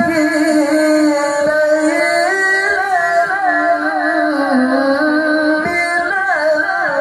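A male qari reciting the Quran in the melodic mujawwad style through a microphone and PA: one high, powerful voice holding long notes with ornamented turns, climbing in pitch and then sinking back down.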